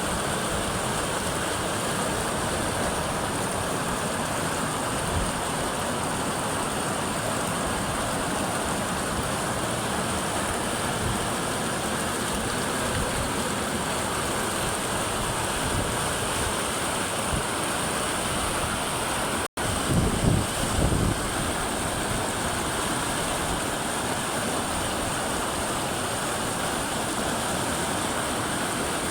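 Steady rushing of running water. About two-thirds of the way through it cuts out for an instant, and a few low thumps follow.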